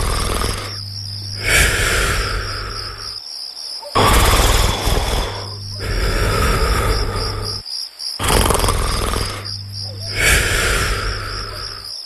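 Cartoon snoring, slow and regular, one noisy breath in or out about every two seconds, over a steady chirping of crickets.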